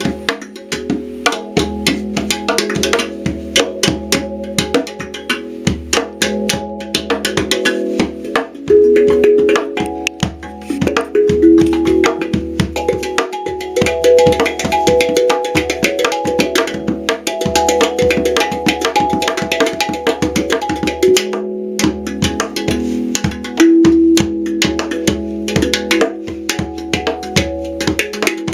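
Hang drum played by hand with quick, dense strikes, its tuned steel notes ringing and overlapping. There is a brief pause about two-thirds of the way through.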